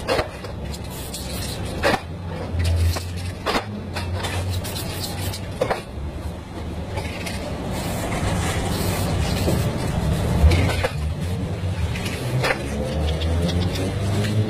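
Steady low rumble of road traffic, with scattered sharp clicks and knocks.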